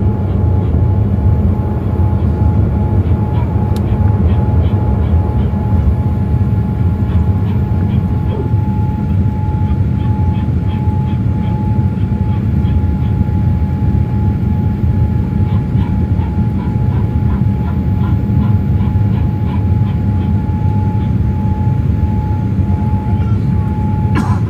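Steady cabin noise of a Boeing 787-8 in flight after takeoff, heard from a window seat over the wing: a loud low rumble of engines and airflow with a thin steady tone running through it.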